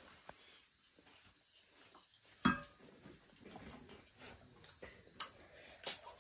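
Steady high-pitched trilling of insects, cricket-like, with a single sharp crack about two and a half seconds in and a couple of fainter clicks near the end.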